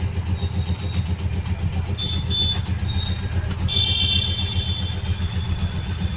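A steady low engine drone with a fast pulse, like an idling engine, runs throughout. About two seconds in, short high tones sound over it, and from about the middle a longer stack of high tones fades slowly.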